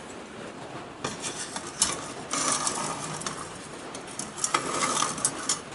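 Stainless steel sheet-metal firebox panels and a copper boiler handled and fitted together by hand: light metal scraping and small clinks, in two spells about two seconds and four and a half seconds in.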